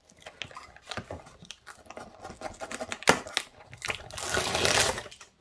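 Packing tape being picked at and torn off the top of a cardboard box: scattered crackles, a sharp snap about three seconds in, then a long rip lasting about a second near the end.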